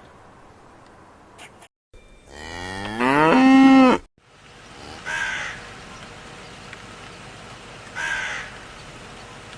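A long animal call that rises in pitch and then holds, cut off abruptly about four seconds in, is the loudest sound. It is followed by two short, higher calls about three seconds apart.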